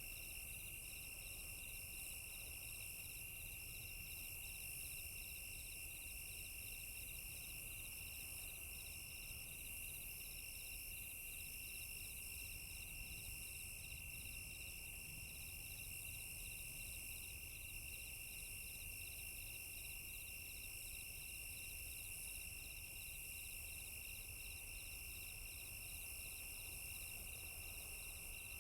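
Crickets trilling in a steady chorus: one unbroken high trill, another cricket pulsing rapidly just above it, and a third chirping in short on-off runs higher still, over a faint high hiss.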